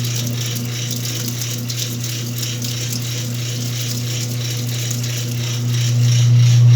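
Whirlpool washing machine running: a steady motor hum under a rapid, regular mechanical clicking and rattling, growing louder about six seconds in.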